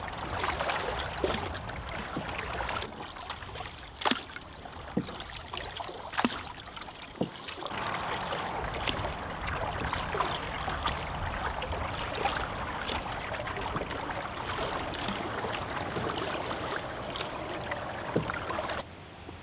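Water splashing and lapping around a wooden canoe as it is paddled, with a few sharp knocks now and then.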